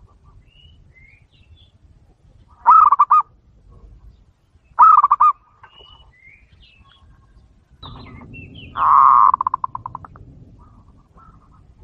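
Zebra dove (perkutut) cooing: three loud phrases of rapid pulsed coos, about 3, 5 and 9 seconds in, the last the longest and ending in a quick trill. Faint high chirps of small birds come in between.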